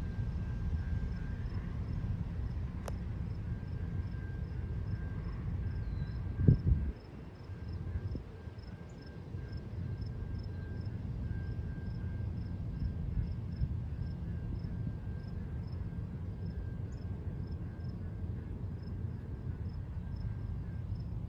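Insects, crickets by their sound, chirping evenly at about two to three pulses a second over a steady low rumble. A single sharp thump comes about six and a half seconds in.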